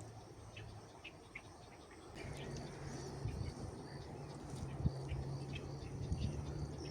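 Outdoor ambience of short, scattered bird chirps and a repeating high insect-like pulse. About two seconds in, a low steady hum comes in and becomes the loudest sound.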